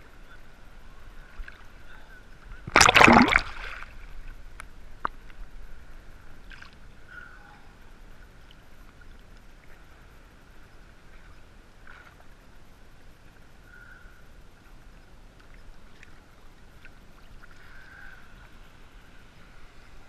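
Sea water lapping and sloshing against a GoPro camera held at the surface, with one loud splash about three seconds in.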